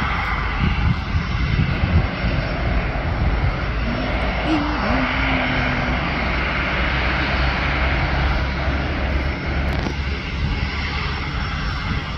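Airbus A350-900's Rolls-Royce Trent XWB turbofan engines running steadily at low taxi thrust as the airliner rolls and turns onto the runway, a constant jet whine over a low rumble.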